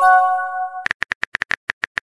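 Chat-app sound effects: a short bright chime of a few held notes as a message is sent, lasting under a second, followed by a fast run of keyboard typing clicks.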